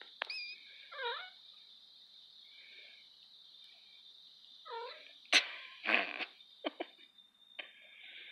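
Three-week-old kitten giving two short high mews, about one and about five seconds in, as its mother cat grooms it. Scuffling and several sharp clicks follow, the loudest a click just after five seconds.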